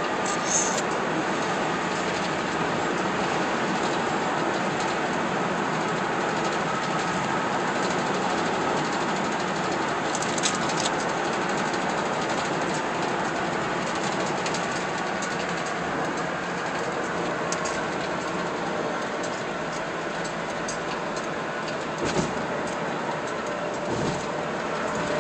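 Steady tyre and road noise heard from inside a car's cabin while driving on a freeway, with a few brief faint clicks.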